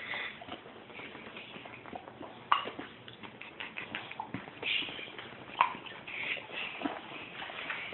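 A dog moving about on a hard surface: scattered taps and scuffling, with two sharp knocks, one about two and a half seconds in and one a little before six seconds.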